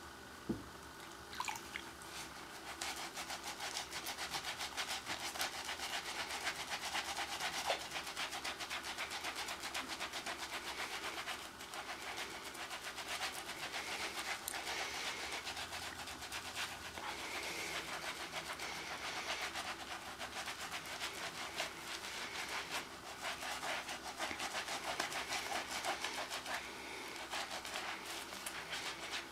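Skin of the hands being scrubbed hard, a fast stream of rough rubbing strokes. A single knock comes just before the scrubbing starts.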